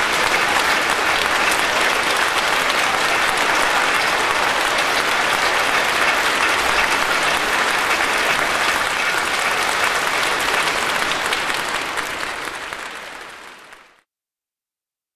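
Audience applauding steadily, a dense patter of many hands clapping; the applause fades out over the last couple of seconds and then drops to silence.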